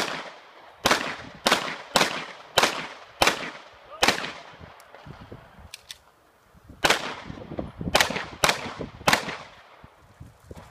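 A Tanfoglio pistol fired rapidly in a practical-shooting course of fire: eight quick shots about half a second apart, a pause of a couple of seconds, then five more at the same pace.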